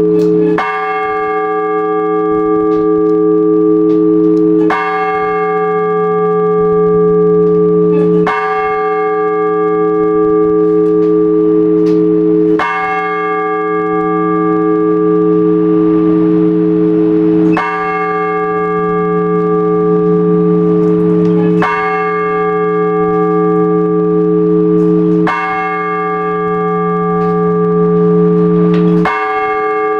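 A large Orthodox church bell tolled in slow single strokes, about one every four seconds, each stroke ringing on into the next: the measured tolling that calls the faithful to the all-night vigil.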